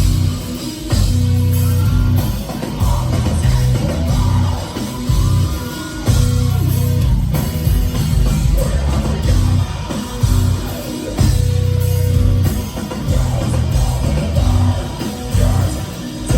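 Heavy metal band playing live through a loud PA: distorted guitars, bass and a drum kit pounding out a heavy, rhythmic riff, with singing over it.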